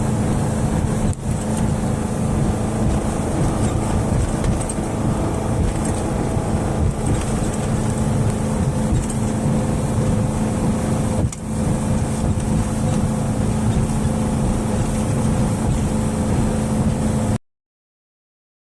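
A small cruise boat's engine running steadily: a constant hum over a rushing noise. It cuts off suddenly near the end.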